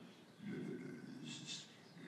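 Faint, indistinct voice murmuring, with a brief hiss about one and a half seconds in.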